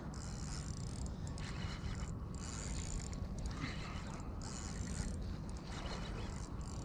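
Shimano Stradic FL spinning reel being cranked, its gears whirring in uneven spells, as a hooked queenfish is reeled in, over a steady low rumble.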